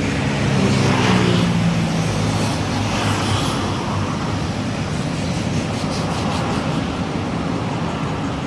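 City street traffic: a motor vehicle's engine passes close, loudest about a second in, over a steady wash of road noise.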